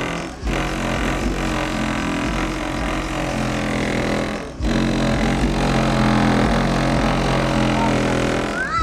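Bass-heavy music played loud through a 500 W RMS car subwoofer in a Skoda Octavia, with the undamped stock door and trunk panels buzzing along with the bass. The sound cuts out briefly twice, about a third of a second and four and a half seconds in.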